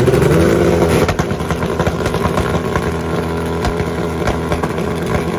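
Drag-racing motorcycle engines running at the starting line. The pitch rises as one is revved just after the start, then holds steady and loud with some crackle.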